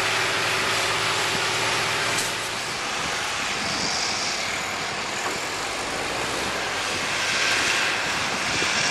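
Heavy diesel machinery running steadily: a loaded semi truck and a beet harvester working side by side, a loud even noise with a low hum for the first couple of seconds.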